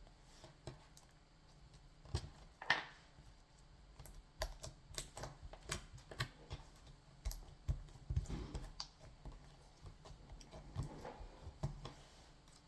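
Clear slime being squeezed and worked in the hands, giving irregular small clicks, pops and soft squelches.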